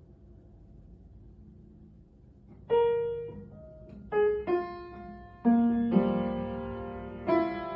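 Upright piano keys pressed by a cat's paws: faint for the first couple of seconds, then a few scattered single notes at uneven intervals, followed by clusters of several keys sounding together, each left to ring and fade.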